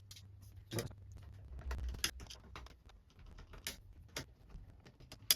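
Irregular small clicks and taps of screws being removed from a Sky+ satellite box, with a sharper click near the end.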